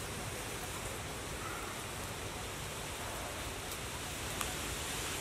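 Steady hiss of background noise, with a couple of faint clicks about four seconds in.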